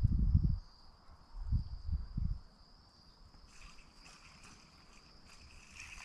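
Insects keep up a steady, high-pitched buzz. Low rumbles come in the first couple of seconds: movement or wind on the microphone.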